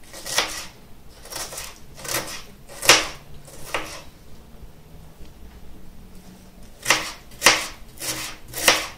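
Kitchen knife chopping an onion finely on a plastic cutting board: a series of separate cuts, about one or two a second, with a pause of a few seconds midway.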